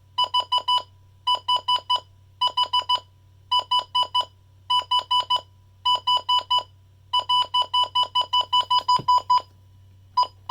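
Midland WR-100 weather radio alarm sounding: a high electronic beep in quick bursts of four, about once a second, then a longer unbroken run of beeps for about two seconds before it cuts off. A short single beep follows near the end.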